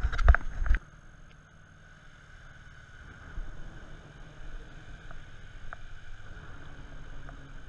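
A few sharp knocks of gear being handled in the first second, then a low, steady rumble of road traffic crossing the bridge overhead.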